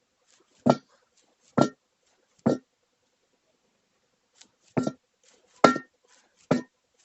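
Hammer blows knocking a new tyre onto a pickup truck's steel wheel rim, each strike ringing briefly. There are six strikes, in two runs of three about a second apart, with a pause of about two seconds between the runs.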